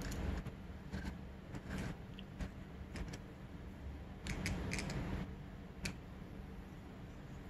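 Small metal clicks and taps of a hex key and needle keeper against a Keihin FCR carburettor's throttle slide as the jet needle is seated back in it. The clicks come about one a second, with a quick cluster of three or four just past the middle.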